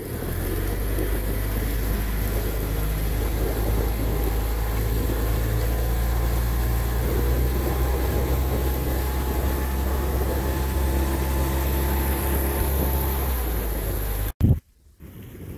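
Four-stroke outboard motor running steadily at cruising speed, its low hum under the rush of the wake. The sound cuts off abruptly near the end.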